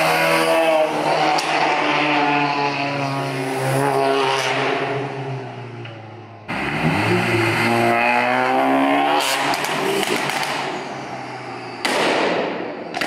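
Modified cars accelerating away one after another through an underpass, exhausts rising in pitch as they rev, first a widebody Subaru WRX's turbocharged flat-four. The sound cuts abruptly to another car's pass about six and a half seconds in and again near the end.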